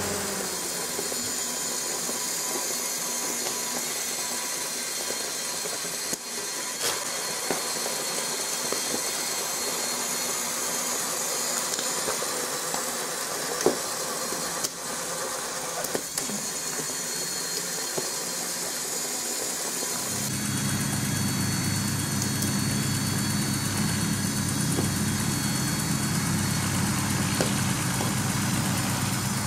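Motor and gear train of a large Meccano crawler tractor model running with a steady whirr and whine, with a few sharp clicks as the control levers are moved. About twenty seconds in, a deeper, louder hum joins and carries on.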